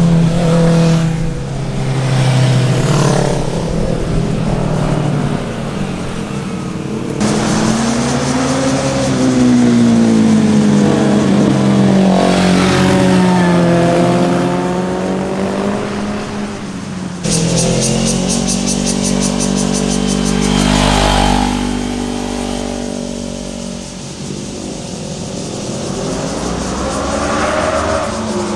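Sport motorcycle engines passing through corners one after another, revving up and dropping back in pitch as the riders shift and roll on and off the throttle. The sound changes abruptly twice, about seven and seventeen seconds in, as one pass-by gives way to another.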